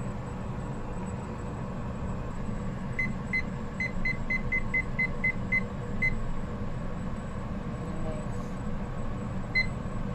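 Short high electronic beeps from a small digital kitchen timer as its buttons are pressed to set it: about a dozen in quick succession, then one more near the end. A steady low hum runs underneath.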